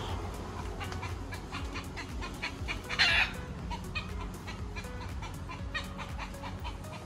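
Birds calling from the bush in a string of short, clipped calls, with one louder, harsher call about three seconds in.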